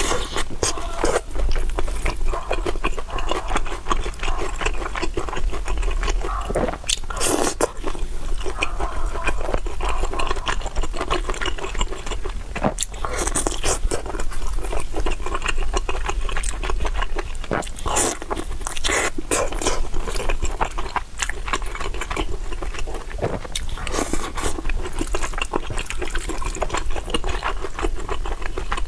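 Close-miked mukbang eating sounds: a person chewing and biting food, a dense run of wet clicks and crunches with a few louder bites.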